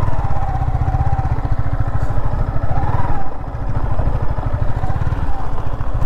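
Motorcycle engine running at low revs over a rough track, with a brief dip in loudness about three and a half seconds in.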